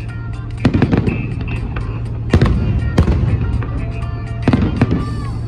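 Fireworks salute bursting overhead: about half a dozen sharp bangs at irregular intervals, over a steady low rumble.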